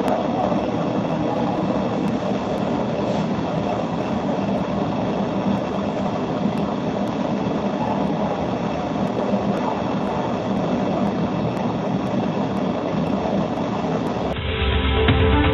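Steady hiss and low rumble of a voice recorder's amplified background noise, with no voice in it. Music comes in abruptly near the end.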